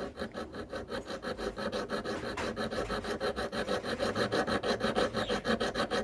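Metal file rasping back and forth on a silver ring, quick even strokes about seven a second.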